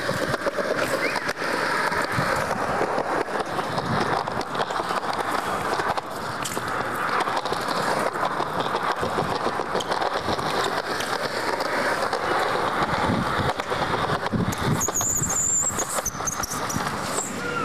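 Fixed-gear bicycle tyres rolling and scraping over concrete, a steady rushing noise with a high squeal near the end.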